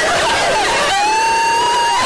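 Loud, harsh high-pitched screaming voices over a dense noisy wash, with one long held shriek starting about halfway through.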